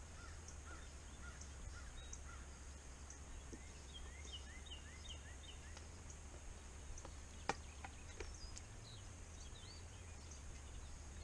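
Outdoor ambience of birds chirping, short repeated notes in quick runs, over a steady low background rumble, with a single sharp click about seven and a half seconds in.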